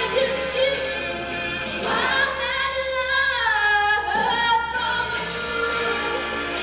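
A song with several voices singing over musical accompaniment; a long held note about two seconds in slides down in pitch near the four-second mark.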